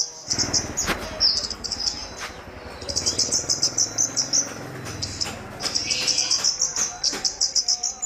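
A caged kemade songbird singing in full voice: runs of very rapid, high twittering notes, each lasting a second or so, broken by short pauses.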